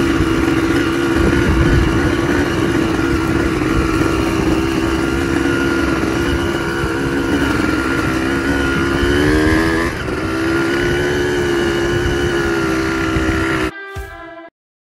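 Power-valve two-stroke 250 engine of a 2003 Honda CR250R, fitted in a three-wheeler, running under load while being ridden. The pitch climbs near nine seconds, drops at about ten seconds, then holds steady until the sound cuts off suddenly near the end.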